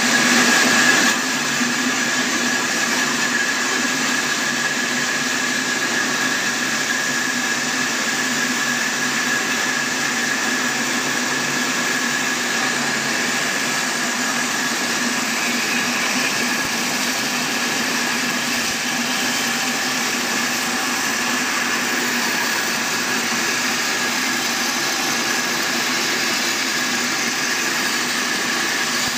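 Band sawmill running steadily while its blade cuts lengthwise through a large log: a constant high whine over a low hum.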